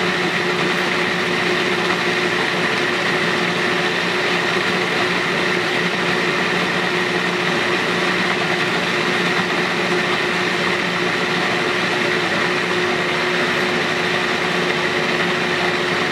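Food processor motor running steadily, its blade puréeing fresh strawberries into a raw jam: an even motor hum with a high whine.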